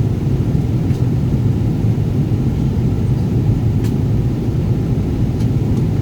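Steady low rumble of a Boeing 777's passenger cabin: engine and airflow noise heard from a seat, with a few faint ticks.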